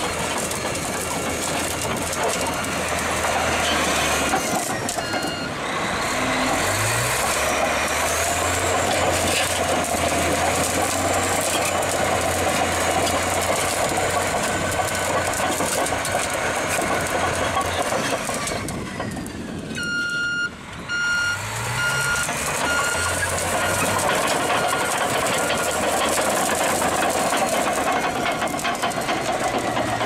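Large crawler bulldozer's diesel engine running loudly as the machine backs off a crushed car, revving up briefly twice, with its reversing alarm beeping in a regular series of short beeps, clearest about twenty seconds in.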